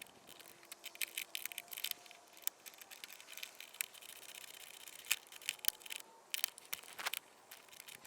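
Faint, irregular small clicks and scrapes of hand tools on metal as a pin hood latch's mounting bolt is tightened down.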